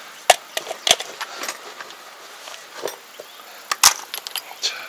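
Scattered sharp knocks and clicks of a pipe and its fittings being handled and shifted into place, the loudest about a third of a second in, near one second, and near four seconds.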